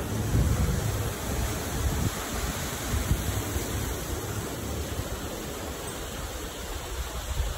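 Steady rushing hiss outdoors, with wind buffeting the microphone as low rumble that dies down after the first couple of seconds.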